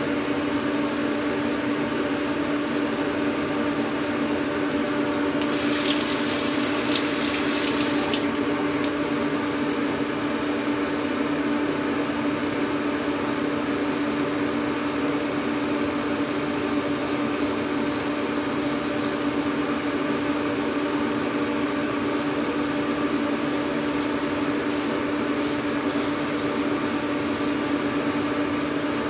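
A steady hum with a strong low tone runs throughout. A tap runs for about three seconds starting around five seconds in, and faint short scrapes of a razor cutting through shaving lather follow in the second half.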